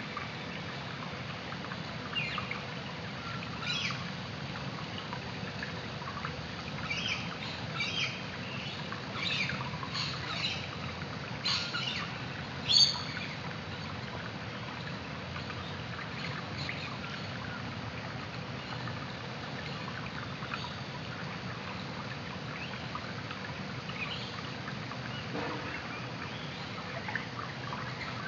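Creek ambience heard through an underwater camera: a steady low rush of water, with a scatter of short high chirps and clicks. The chirps and clicks come mostly in the first half, and the loudest is a single sharp click about 13 seconds in.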